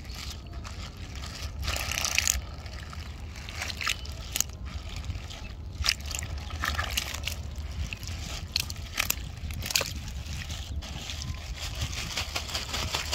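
Water sloshing and splashing, with irregular short splashes.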